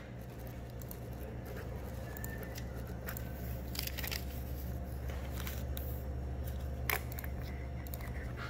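Quiet room tone with a steady low hum, and scattered small clicks and rustles of things being handled on a counter, the clearest about four seconds in and again near seven seconds.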